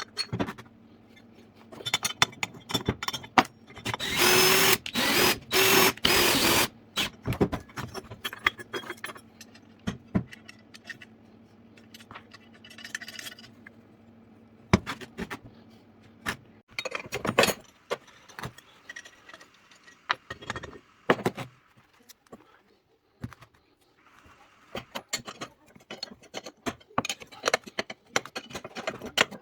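Workshop sounds of metal tools and parts being handled, with scattered clicks and knocks. A power tool runs in short spurts for about three seconds around four seconds in, and again briefly later.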